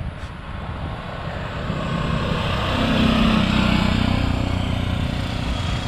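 A motor vehicle's engine running over road and wind noise, growing louder about two to three seconds in and then holding steady.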